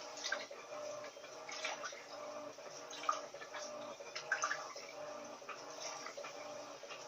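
Water splashing and dripping inside the drum of an Electrolux Turbo LT12F top-loading washing machine as it works a load of clothes, in irregular spurts over a steady faint machine hum.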